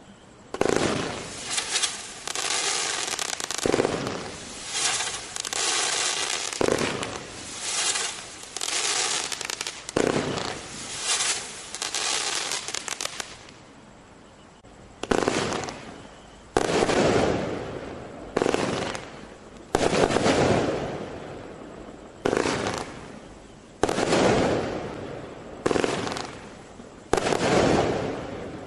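A 20-shot consumer firework cake firing its shots one after another, each sharp launch followed by a crackling burst. The shots come in quick succession for about the first half, then after a brief pause come roughly one every second and a half.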